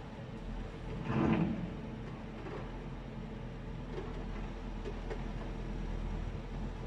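A heavy vehicle's engine running steadily, with a brief louder scraping noise about a second in and a few faint clicks later.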